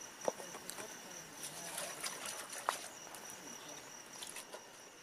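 Crickets trilling in one steady high tone, with two light knocks, one just after the start and one a little past halfway.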